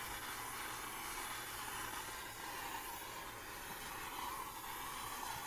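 Handheld gas torch burning with a steady hiss as its flame singes the wood fuzz off a carved wooden pumpkin.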